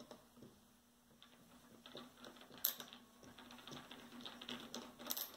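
Rapid, irregular small mechanical clicks and ticks from hand work on a wooden gear clock under assembly. They start about two seconds in and grow busier, with a couple of sharper clacks, over a faint steady hum.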